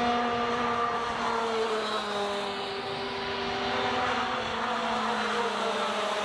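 Several two-stroke racing kart engines running hard together, each engine note gliding up and down in pitch as the karts accelerate and lift through the corners.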